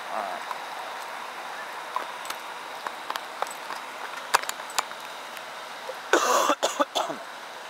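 Steady low hiss with scattered small clicks, then about six seconds in a person coughs loudly for about a second.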